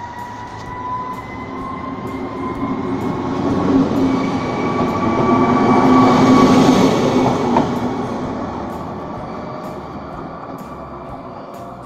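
ČD class 854 diesel railcar and its coaches passing at close range: engine, running gear and wheels on the rails, with a steady whine that rises slightly in pitch. It swells to its loudest about six seconds in as the coaches go by, then fades as the train pulls away.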